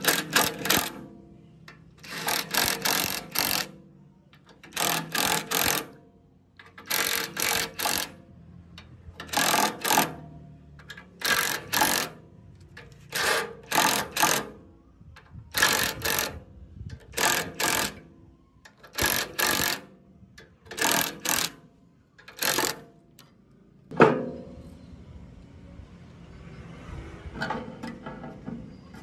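Rhythmic hand scraping strokes on a compressor part, in short bursts of a few quick back-and-forth strokes about every two seconds. A single sharp knock comes near the end, followed by fainter scratching.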